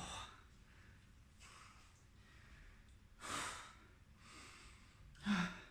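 A man breathing hard and sighing while he rests out of breath between push-ups. There is a long, noisy exhale a little after three seconds in, softer inhales between the exhales, and a short voiced sigh near the end.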